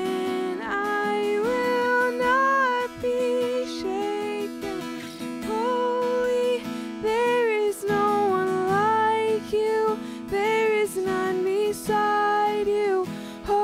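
A contemporary worship song sung with strummed acoustic guitar: a slow melody with long held notes over steady guitar chords.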